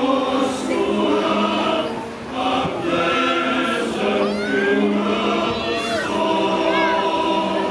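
A choir singing, holding long chords that shift every second or so.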